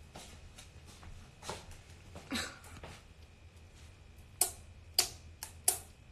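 A few sharp clicks or taps, four of them close together in the second half, over a faint steady low room hum.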